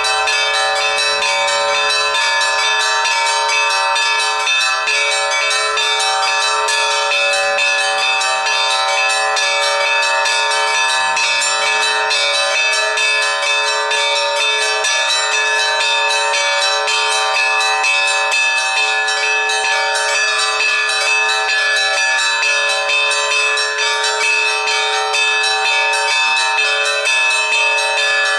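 Russian Orthodox church bells being rung, several bells sounding together in a dense, unbroken peal that holds steady throughout.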